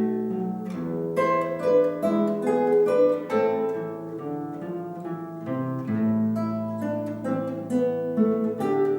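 Acoustic guitar playing a solo piece: a plucked melody of single notes over ringing bass notes that change every second or two.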